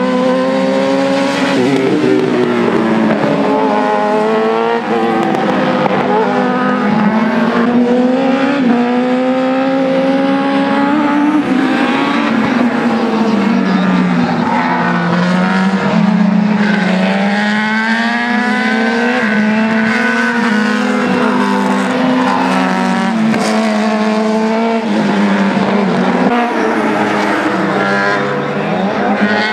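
Formula Challenge single-seater race car engine at racing speed, its note climbing in pitch and falling back repeatedly as the driver accelerates, shifts and lifts for corners.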